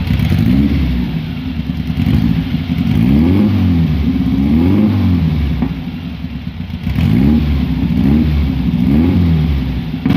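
Classic Volkswagen Beetle's air-cooled flat-four engine running and revved again and again: about six swells of engine pitch rising and falling, heard close to the exhaust.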